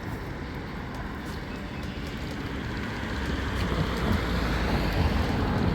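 Road traffic noise: a motor vehicle engine runs over a steady rush of road noise and grows louder in the second half.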